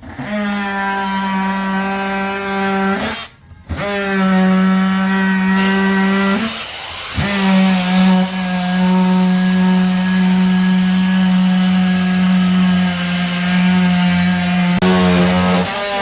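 A power tool motor running with a steady whine, in three spells that stop briefly twice.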